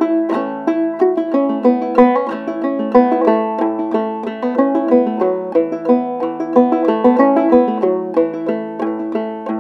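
Old-time clawhammer banjo tune: a quick, continuous run of plucked notes with a steady bouncing rhythm, over a lower accompanying line.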